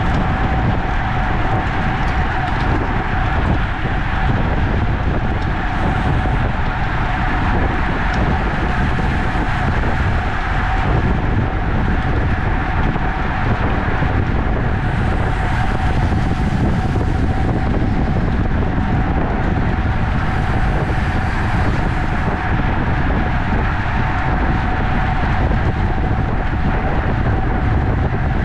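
Steady wind rush on the microphone and tyre noise from a road bike riding at race speed, with a thin steady tone running through it.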